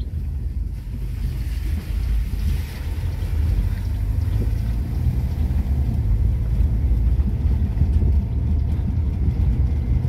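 Steady low rumble of a vehicle driving slowly on a wet dirt road, heard from inside the cabin: engine and tyre noise.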